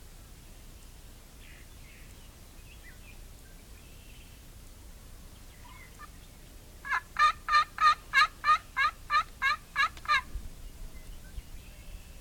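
Turkey calling: a loud run of about a dozen evenly spaced notes, roughly four a second, lasting about three seconds and starting about seven seconds in, with faint short chirps before it.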